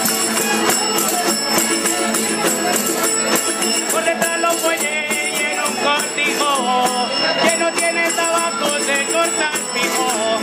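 Live Spanish folk dance music: acoustic guitars strummed and a small twelve-string Spanish lute playing the melody, with jingling percussion striking a steady beat.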